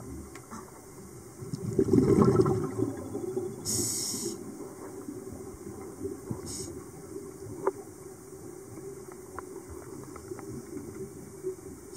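Scuba diver's breathing heard underwater: a loud rumble of exhaled bubbles about two seconds in, then a short hiss of the regulator about four seconds in, with a shorter hiss later, over a steady low hum.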